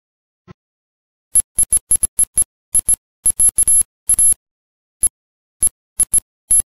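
A string of about twenty short, sharp, high-pitched ringing tones, all alike, coming at irregular intervals with dead silence between, starting about a second and a half in.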